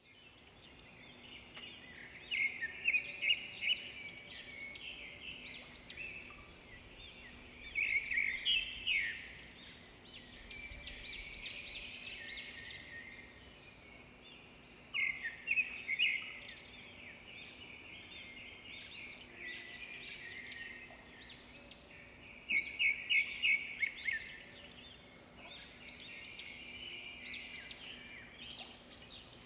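Small birds chirping and singing in bouts of quick, high, repeated notes. The loudest bursts come about 3, 8, 15 and 23 seconds in.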